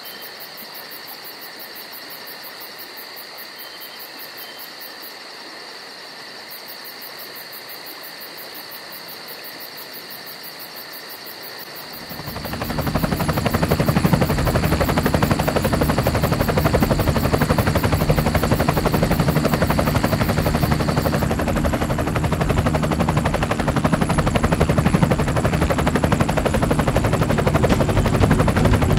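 Loud, steady rotor whirr of an aircraft filming from the air. It comes in about twelve seconds in, after a quieter stretch of steady hiss with a thin high whine.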